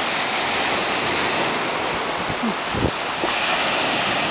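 Ocean surf washing steadily onto a sandy beach, with wind buffeting the microphone in a few low thumps a little over halfway through.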